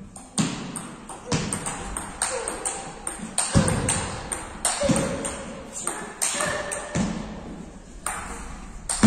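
Table tennis rally: the ball clicks sharply back and forth off the bats and the table, about two hits a second, each with a short echo from the hall.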